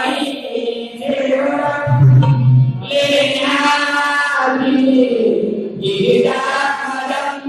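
Marathi Koli folk song (koli geet): a voice singing in long, pitch-bending phrases over music, with a deep low note about two seconds in.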